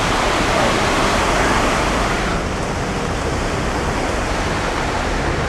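Steady rushing, splashing noise of floodwater in a street. It turns a little softer and duller about two seconds in.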